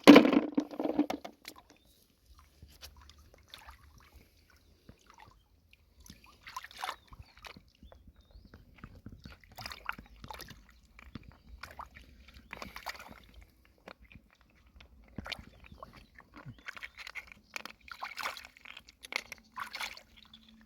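A loud splash of water, then scattered crunching and clicking as snail and clam shells are handled in shallow water.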